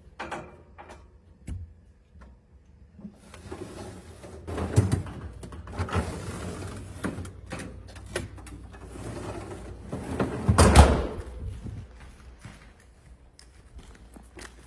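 Rummaging in a refrigerator's pull-out freezer drawer: plastic food containers and frozen bags shifted about in the wire basket, with rustling, scattered clicks and knocks. The loudest clatter comes about eleven seconds in.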